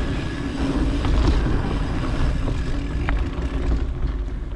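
Mountain bike rolling along a dirt singletrack: steady tyre and drivetrain noise under a low rumble of wind on the action camera's microphone, with a few short clicks from the bike.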